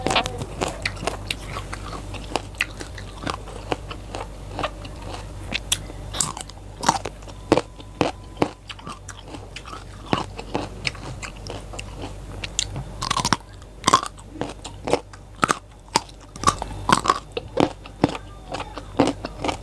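A person biting and chewing crunchy raw vegetables: a continuous run of irregular crisp crunches and wet mouth clicks, with a few louder bites near the middle and toward the end.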